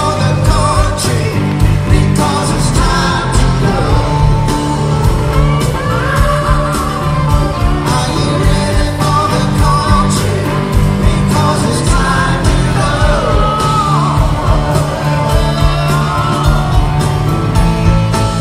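Live rock band playing, with electric guitar, keyboards, bass and drums, and a tenor saxophone playing a wavering lead line over them.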